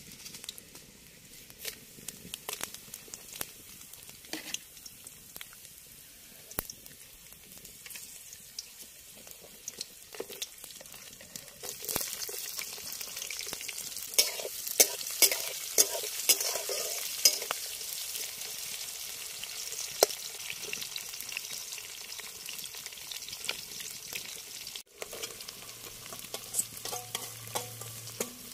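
Garlic, onion and chillies frying in hot oil in a steel kadai over a wood fire, sizzling steadily, with sharp clicks and scrapes of a spatula stirring in the pan. The sizzle gets louder about twelve seconds in as more ingredients go into the oil.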